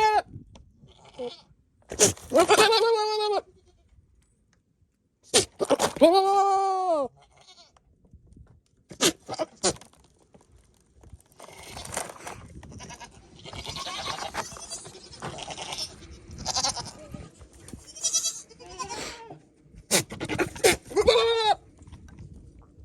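Nigerian Dwarf goats bleating: three long, arching bleats, with softer rough noises in between. These are the courting noises of a rutting buck flirting with does in heat.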